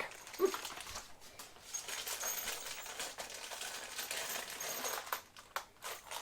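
Plastic packaging rustling as a bag of parts is handled, with a few sharp clicks near the end.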